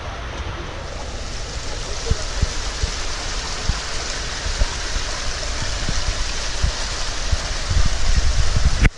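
Steady rush of running water at a water slide, with low bumps on the microphone; it cuts off abruptly just before the end.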